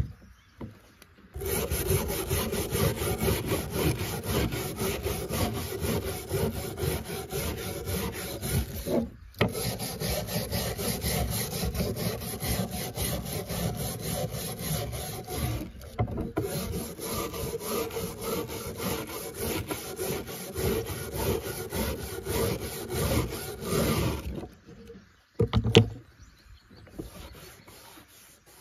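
Hand wire brush with steel bristles scrubbing rust off a rusted shear blade on a wooden board, in rapid back-and-forth strokes that pause briefly twice. The scrubbing stops a few seconds before the end, followed by a single short knock.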